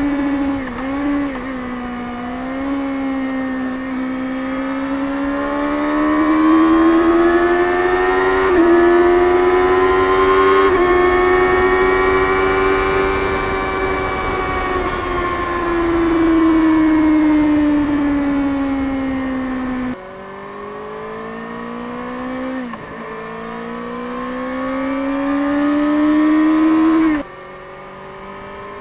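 Kawasaki Ninja ZX-6R 636's inline-four engine with stock exhaust, under way: the engine note rises and falls with the throttle, with quick pitch steps at gear changes. About twenty seconds in, and again near the end, the sound drops suddenly as the throttle is shut.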